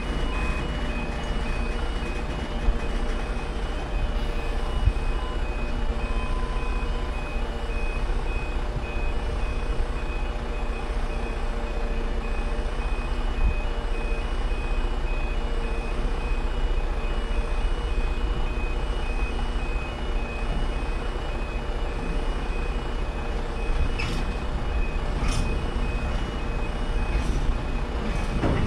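Level crossing alarm beeping steadily over the continuous rumble and wheel noise of a freight train's wagons rolling past, with a few clanks near the end.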